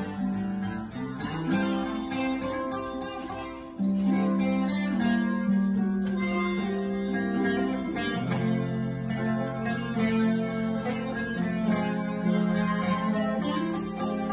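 Acoustic guitar strumming and an electric guitar through an amp, with a harmonica holding long notes over them.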